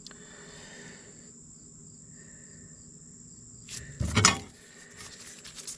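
Faint steady high-pitched chirring of crickets, with a sudden loud clatter about four seconds in.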